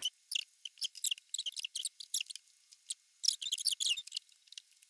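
Small mealtime noises: irregular light clicks and crackles, bunching densely about three seconds in and again near the end.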